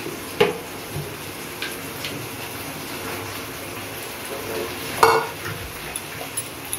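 Masala paste sizzling in a steel kadai while tender coconut water is poured in and stirred with a metal spoon. A loud clink about five seconds in as the empty steel bowl is set down.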